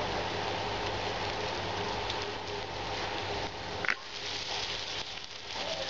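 Breaded beef cutlets sizzling in hot oil in a frying pan, a steady crackling hiss. About four seconds in comes a short sharp clink of metal tongs as the pieces are turned, and the sizzle dips a little after it.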